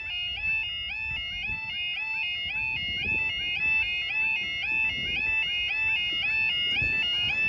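Level crossing yodel alarm: a two-tone warble stepping rapidly up and down, about three times a second, sounding while the crossing barriers rise. It cuts off near the end as the barriers come fully up.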